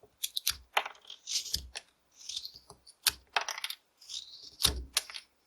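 Carving knife cutting into a basswood stick: a quick run of crisp snicking cuts and short scraping strokes, with the sharpest snaps about half a second, three seconds and four and a half seconds in.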